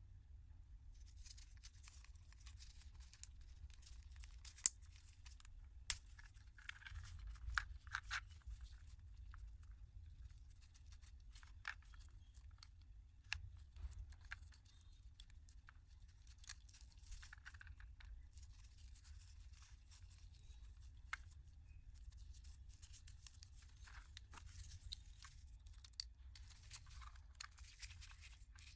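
Hand work on small parts: intermittent scraping and rustling, with a few sharp clicks, the two loudest about five and six seconds in, over a faint steady low hum.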